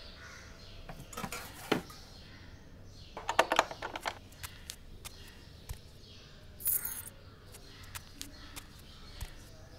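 Scattered light clicks and knocks, with a quick cluster of them about three seconds in and a brief rustling scrape near seven seconds.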